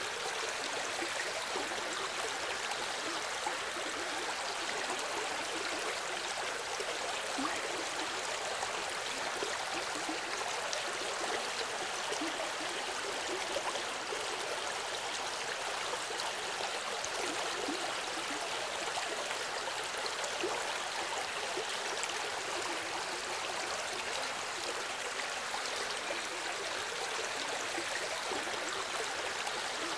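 A small river flowing: a steady, even rush of water.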